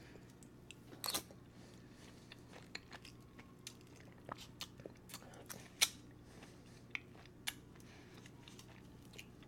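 A person eating grapefruit scooped with a grapefruit spoon: quiet chewing with scattered small clicks and smacks, a few sharper ones about a second in and around six and seven and a half seconds in.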